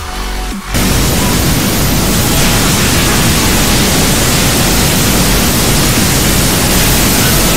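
Small jet turbines of a wearable jet suit running: a loud, steady rushing noise that starts suddenly just under a second in and holds.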